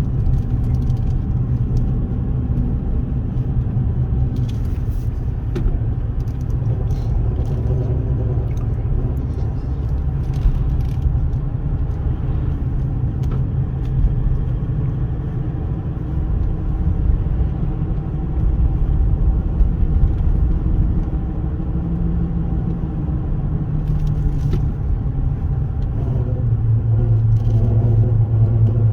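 2016 Ram 1500 pickup making a continuous low rumbling grind, the grinding noise the owner is recording; it grows louder and steadier in tone near the end.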